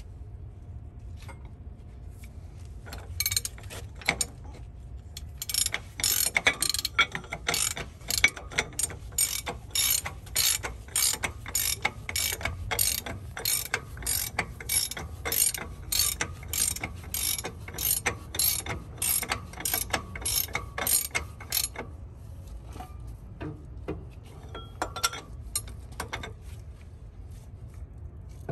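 Ratchet wrench clicking steadily, about two clicks a second, for some fifteen seconds from about five seconds in. A few scattered metal clicks come before and after.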